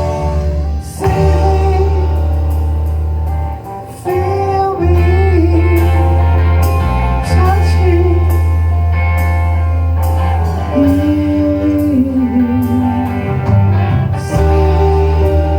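Band playing live: a singer over bass, guitar and drums, with a steady beat of cymbal strikes and a blues feel.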